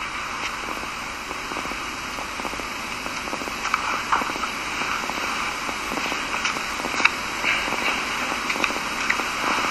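Steady background hiss with scattered faint clicks and rustles; no speech.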